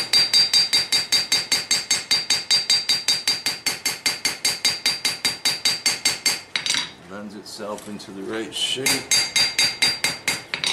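Hand hammer forging a hot steel knife blade on an anvil: rapid, even blows about five a second, each with a high ring from the anvil. The hammering stops for about two seconds partway through, then resumes.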